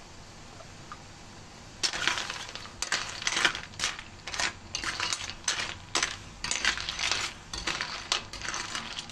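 Snail shells clattering against each other and the wok as the siput sedut are stirred, an irregular run of sharp clinks and rattles starting about two seconds in.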